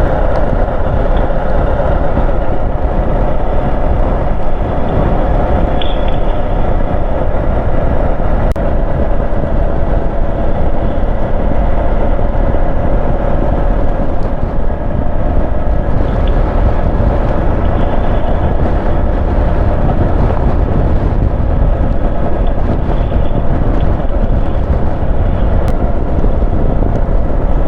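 Motorcycle riding steadily: an even engine drone mixed with wind and road noise on the on-bike microphone.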